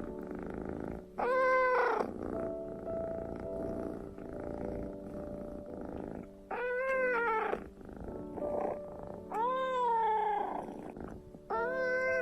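A kitten meowing: three drawn-out meows, each rising and then falling in pitch, and a fourth beginning near the end. Between the meows a steady low purring continues.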